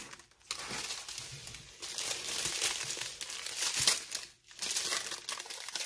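Small plastic bags of diamond-painting drills crinkling as they are handled, with two brief pauses.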